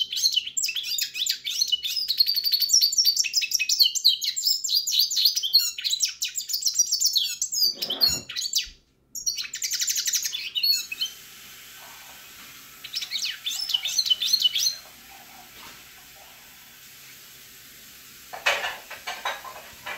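Pintagol, a red siskin–canary hybrid, singing a fast, twittering warbled song. The song breaks off briefly about eight seconds in, resumes, goes quiet after about eleven seconds, then comes back in a short burst around thirteen seconds.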